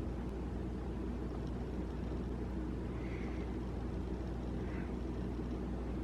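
Steady low hum of a running household appliance, with two faint soft chirps from a pet budgie about three seconds in and near the five-second mark.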